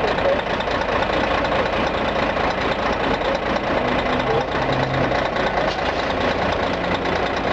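Scania K113CL bus's 11-litre DSC11 diesel engine running steadily with a hoarse, rough note, not revved.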